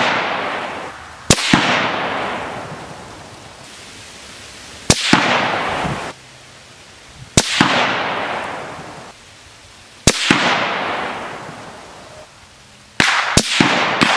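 Six rifle shots from a 6mm Creedmoor Ruger Precision Rifle with a muzzle brake, spaced about two to four seconds apart. Each shot is a sharp report followed by a long echo that dies away over a second or more. Near the end two reports come less than half a second apart.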